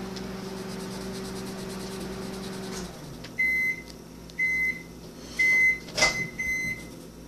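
A steady electrical hum that stops a little under three seconds in, followed by a series of short, high electronic beeps about a second apart, with a sharp click among the later beeps.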